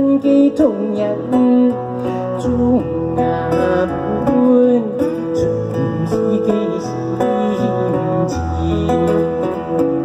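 Live solo music: a round-bodied moon guitar being plucked and strummed, with notes changing steadily.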